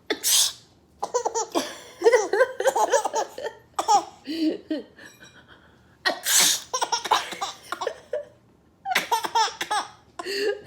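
A woman's pretend sneezes, two or three of them, each followed by a baby laughing hard in quick runs of giggles.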